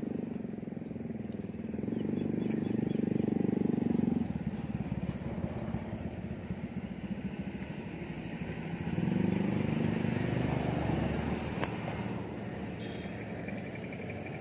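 Small motor boat engine running, swelling louder twice as the boat approaches.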